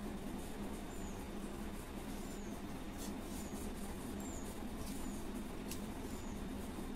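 A short, high chirp repeated about once a second by a small creature, over a steady low hum.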